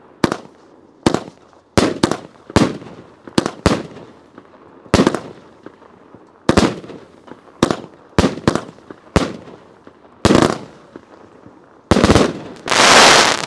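Dakota Largemouth 200-gram consumer firework cake firing: a string of sharp bangs at uneven intervals, each trailing off briefly, ending in a denser burst of reports about a second long near the end.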